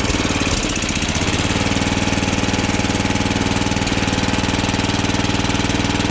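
Tecumseh lawnmower engine running steadily, freshly reassembled with a new recoil starter. Its speed dips briefly about half a second in and then recovers.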